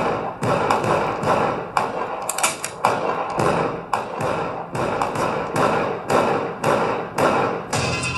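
Percussive section of a dance-routine music track: heavy, evenly spaced thumping hits, about two a second, over a steady background wash.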